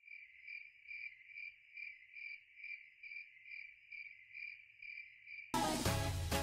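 Crickets chirping in an even pulse, a little over two chirps a second; electronic dance music with a heavy beat cuts in suddenly near the end.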